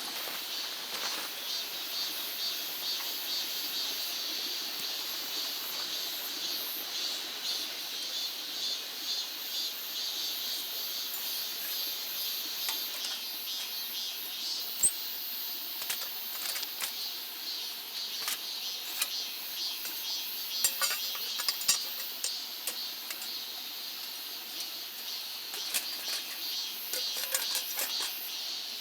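Steady, high, pulsing insect chorus, with scattered light clicks and taps that come more often in the second half.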